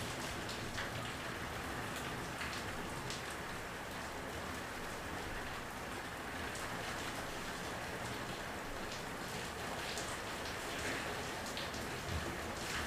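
Steady rain from a thunderstorm, falling as an even hiss with scattered louder drops ticking on a hard surface.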